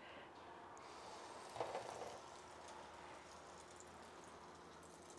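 Egg-battered, cheese-filled chard rolls frying in hot oil: a faint, steady sizzle with fine crackles. The sizzle briefly swells about a second and a half in.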